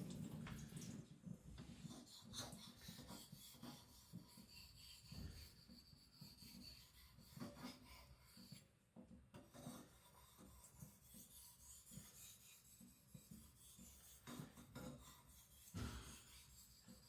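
Faint rasping strokes of a 75Cr1 carbon-steel knife blade being sharpened on a whetstone, irregular back-and-forth rubbing with small clicks and a brief pause about nine seconds in.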